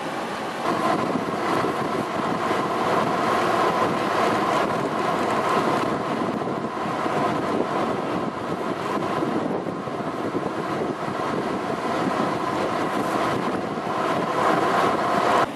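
Steady wind rushing over the microphone, mixed with tyre and road noise from a vehicle driving along.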